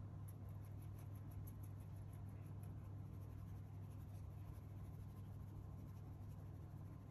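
Small fine-mesh kitchen sieve being tapped and shaken to sift cocoa powder: a quick run of faint light ticks in the first few seconds, fading after, over a low steady hum.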